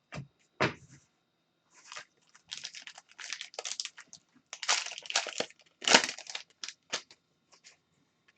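Trading card pack wrappers being torn open and crinkled, with irregular sharp rustles that are loudest about six seconds in.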